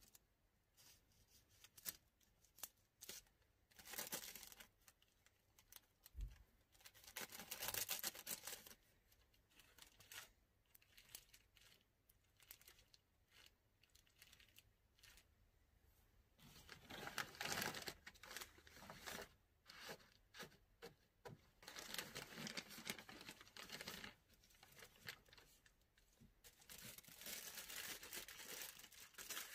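Clear plastic bag crinkling and rustling in several short bursts, with quiet stretches between, as patchouli incense sticks are handled and bagged by hand.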